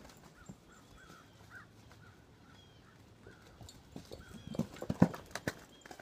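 Horse's hooves thudding on muddy ground, growing louder as the horse comes close, loudest about five seconds in.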